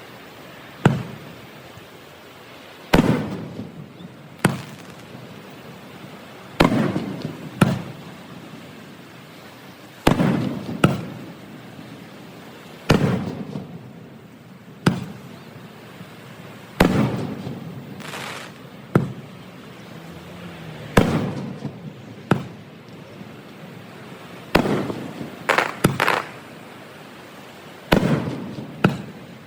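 Aerial firework shells bursting in a show: about twenty sharp bangs, each followed by a rumbling tail, coming every second or two, with a few in quick succession near the end.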